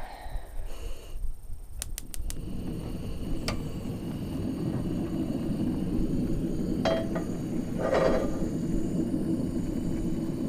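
Portable gas cooking burner being lit: a quick run of igniter clicks about two seconds in, then the flame burns with a steady rushing noise.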